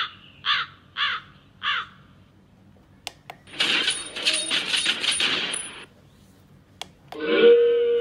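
Preset sound effects played from a V8 sound card's buttons. First come four crow caws about half a second apart, then button clicks, then about two seconds of a noisy crash-like clatter with a high ringing. Near the end a loud effect made of voices starts.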